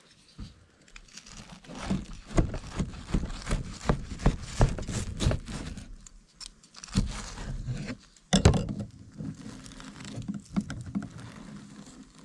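A knife sawing through a toasted sandwich on a plastic chopping board: repeated crunching strokes through the toast, then a single sharp knock about eight seconds in, followed by lighter scraping and clicks.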